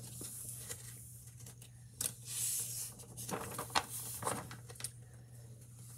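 Paper rustling and swishing as the pages of a picture book are turned and handled, with a few small taps, over a low steady hum.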